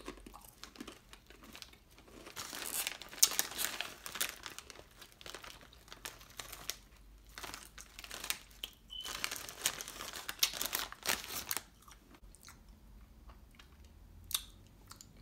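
Close-up crunching and chewing of Ruffles ridged potato chips, with crinkling of the foil chip bag. The crunching is densest in the middle and dies down about twelve seconds in.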